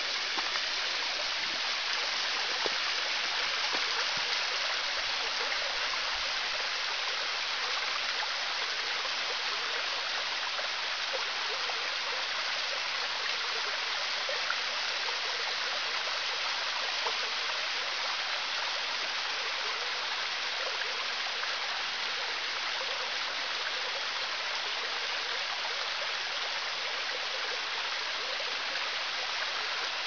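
Small waterfall, about ten metres high, pouring thin streams of water down a rock face: a steady, even rush of falling and splashing water.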